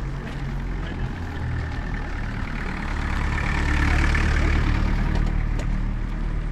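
A small car driving slowly past close by on a dirt street, its engine and tyres growing louder to a peak about four seconds in and then fading.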